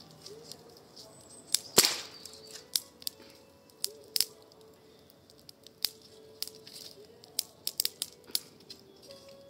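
Wood fire burning in a fire bowl, crackling with irregular sharp pops, the loudest crack about two seconds in.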